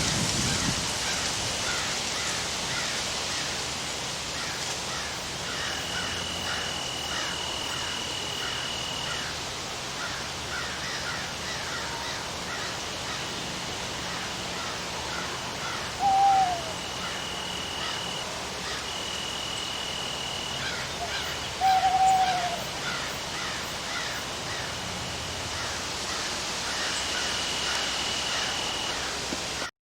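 Forest ambience: a steady hiss of rain under a chorus of small chirps and a high steady buzz that comes and goes. An owl hoots twice, about halfway through and again some six seconds later, and these are the loudest sounds. The whole bed cuts off abruptly at the end.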